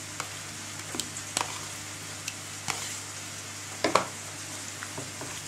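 Mayonnaise being scraped out of a plastic tub onto diced salad in a bowl: soft wet scraping with scattered light clicks of plastic, and a sharper knock about four seconds in, over a steady low hum.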